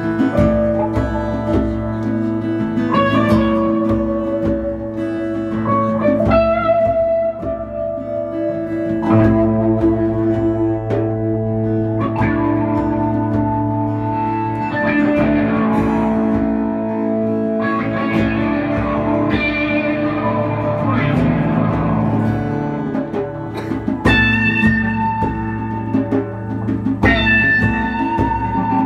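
Live band playing an instrumental passage: electric guitar and a strummed acoustic guitar, with sustained ringing notes over a steady low note.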